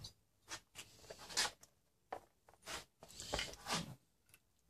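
Handling noise of engine parts on a workbench mat: a bare two-stroke crankcase and a cylinder-and-carburettor assembly being moved and picked up, giving a scatter of short knocks, rubs and scrapes.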